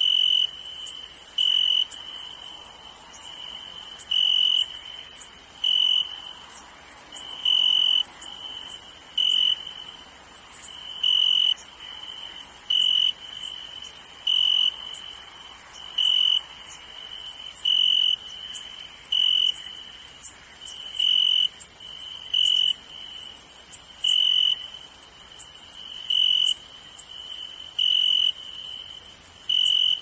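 Night insect chorus: crickets trilling near one high pitch, with louder chirps every second and a half to two seconds, over a continuous very high-pitched insect hiss.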